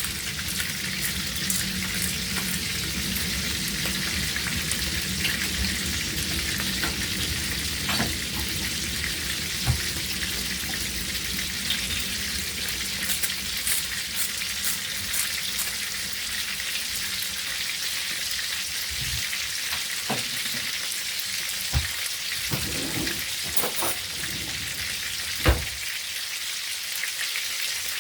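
Dormer sausages sizzling steadily in a frying pan, with a few sharp knocks of a utensil against the pan, the loudest near the end.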